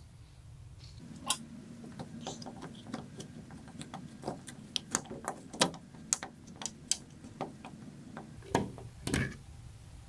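Phillips screwdriver backing a screw out of a sliding patio door's handle: a string of small, irregular metal clicks and ticks, with two louder clicks near the end.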